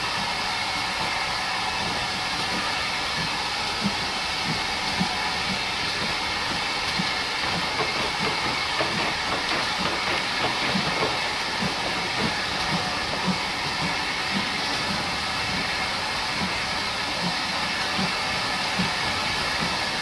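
Steam train: a steady hissing rush of steam and running noise with light, irregular low knocks throughout.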